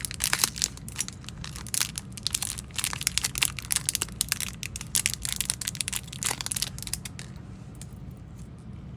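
Fishing-lure packaging crinkling and tearing as it is handled and opened: dense crackles for about seven seconds, then quieting near the end.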